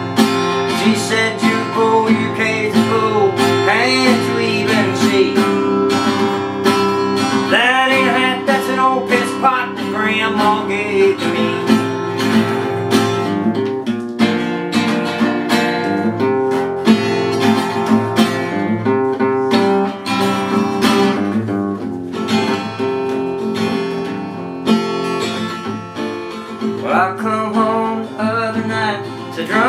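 Acoustic guitar strummed steadily in a country rhythm, an instrumental break with no words sung.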